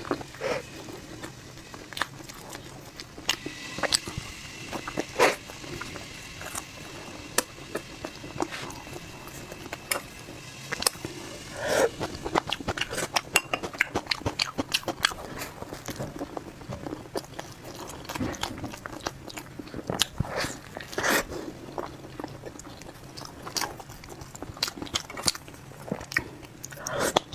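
A person eating close to the microphone, biting and chewing with irregular crunches and wet clicks.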